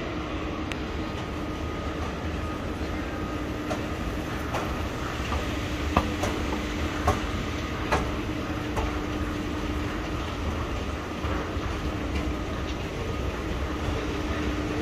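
Railway station ambience: a steady low rumble with a constant hum, and a few sharp clacks about six to eight seconds in.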